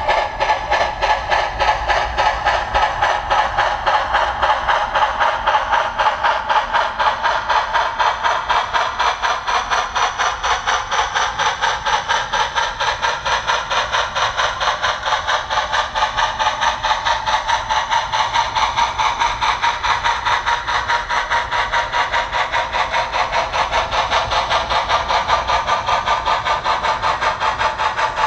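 Model articulated steam locomotive's DCC sound decoder playing a steady steam exhaust chuff, about three to four beats a second, through the locomotive's small speaker as it runs.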